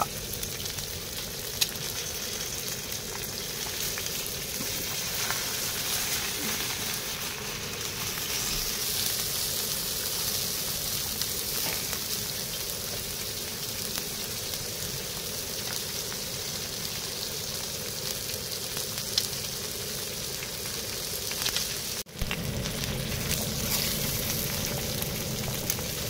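Fried eggs and salmon sizzling steadily on a hot black iron griddle pan, with small crackles and pops. There is a brief dropout near the end.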